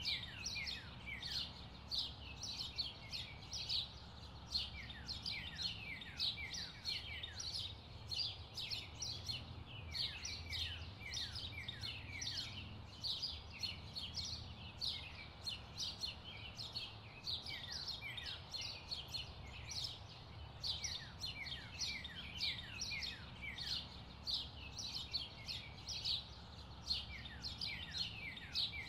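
Birds chirping without a break, many short downward-sliding chirps a second, over a low steady hum.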